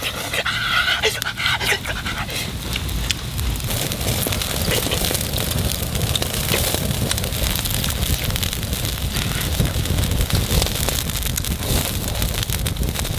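Wood fire crackling under a wok of chicken simmering in broth: a steady hiss with many sharp pops. A brief voice-like call in the first two seconds.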